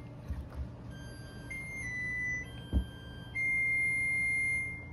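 Oven's preheat alarm beeping: a string of long, steady electronic tones stepping between a few pitches, the last held about a second and a half, signalling that the oven has reached temperature. A single thump sounds a little past the middle.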